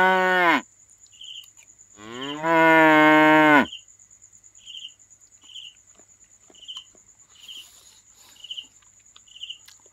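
Two loud, long drawn-out moo-like calls with a steady pitch, one ending about half a second in and the other running from about two to three and a half seconds. After them a cricket chirps about once a second over a faint steady high insect whine.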